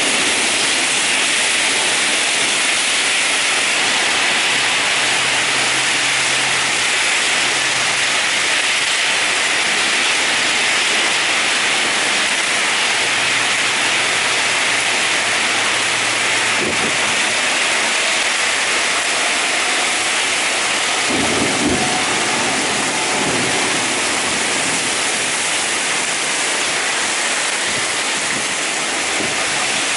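Heavy rain pouring down on a city street and its surroundings, a dense, steady hiss of a downpour.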